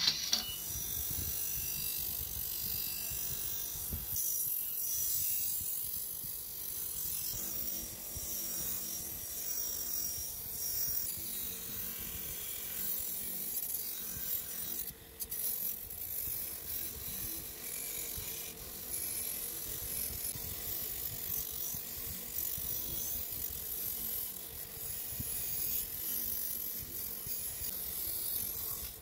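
Electric bench motor spinning a wire brush wheel, with the metal frame of a toy revolver pressed against it: a steady scratchy rasp over the motor's hum, cleaning the old metal.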